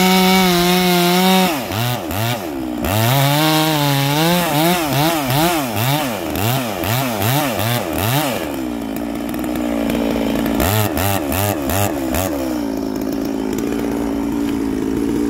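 Two-stroke chainsaw cutting through a large log at full throttle, its revs rising and falling about twice a second as it works through the cut. About eight seconds in it drops back to idle, with a few short blips of throttle, and idles steadily near the end.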